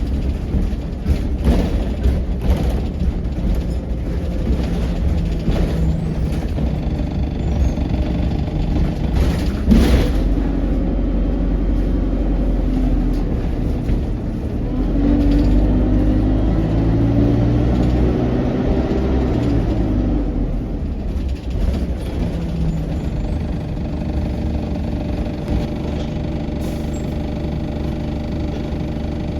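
ADL Enviro200 single-deck bus heard from inside the cabin, its diesel engine and drivetrain running steadily and rising in pitch as it pulls away about halfway through. Rattles and knocks from the body, with one loud knock about ten seconds in.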